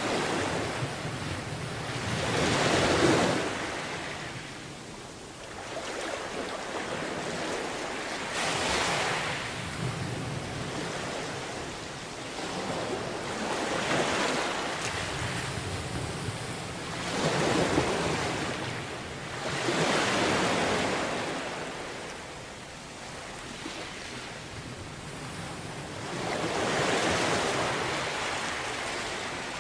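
Sea waves breaking on a beach, the surf swelling and washing in every few seconds over a steady background rush.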